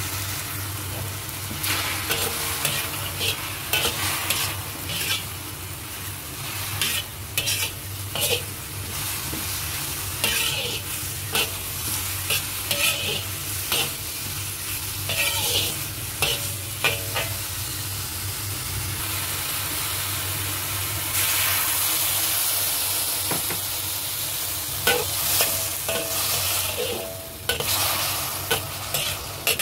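Sliced shiitake mushrooms sizzling as they are stir-fried on high heat in a black wok, a metal spatula scraping and tossing them in repeated short strokes that ring faintly on the metal. The sizzling grows louder for a few seconds about two-thirds of the way through.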